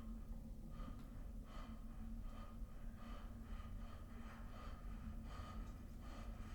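Quick, heavy panting breaths from a film soundtrack, about two to three a second, played through a home-theater speaker system. A steady low hum runs underneath.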